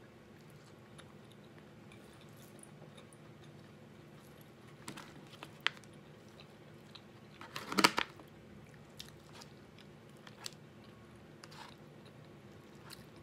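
A person chewing a mouthful of chicken pot pie, with scattered small clicks and light scrapes of a fork in an aluminium foil pie tin. A short, louder clatter comes about eight seconds in.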